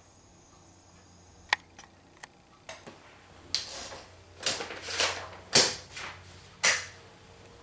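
A 1955 Smith-Corona Sterling portable typewriter being handled: a few sharp mechanical clicks, then about five short, loud swishing sounds in quick succession in the second half.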